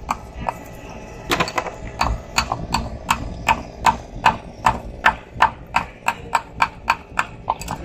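Hard objects knocking or tapping in a steady rhythm, nearly three sharp knocks a second, starting about a second and a half in.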